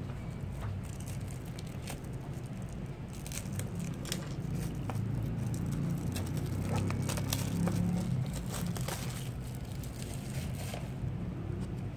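Plastic shrink-wrap crinkling and tearing as it is peeled off a cardboard Funko Mystery Minis blind box: a run of small crackles, busiest in the middle, over a steady low hum.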